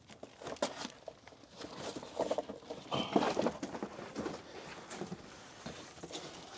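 Irregular knocks and clatter, with footsteps, from someone moving around and handling parts on a junked Jeep.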